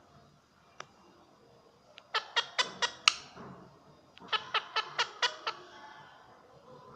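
Parrot giving two quick runs of short, sharp squawking calls, about five in a row and then, after a short pause, about six more.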